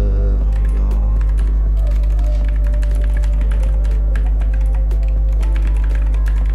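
Computer keyboard typing: a quick run of key clicks. Under it is a steady low hum, louder than the clicks, and faint background music.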